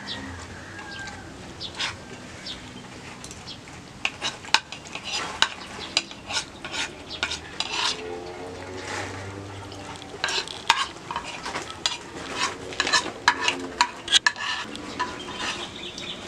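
Metal spoon clinking and scraping against a plate while eating rice, many short, irregular clinks.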